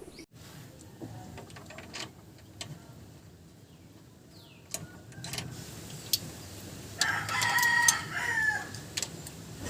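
A rooster crows once, about seven seconds in, a call of under two seconds that drops in pitch at its end. A few sharp clicks come before it.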